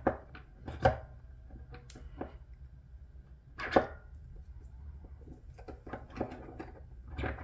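Small metal parts of an ARMASPEC SRS Gen 4 recoil spring assembly clicking and knocking as hands compress the spring and fit the guard with a pin: three sharp clacks, the loudest near the middle, among lighter ticks.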